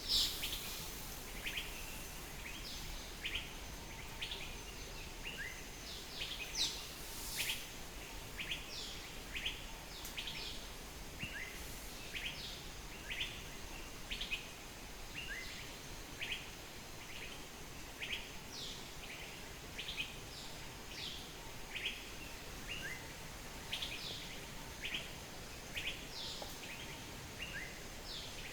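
Birds chirping: short, high, quick notes repeated about once or twice a second over faint background noise.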